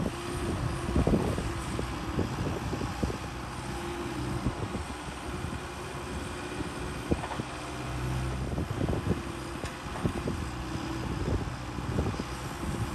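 Bobcat S205 skid-steer loader's diesel engine running as it spears and lifts round straw bales, its note rising a couple of times as the loader arms are worked. Wind buffets the microphone.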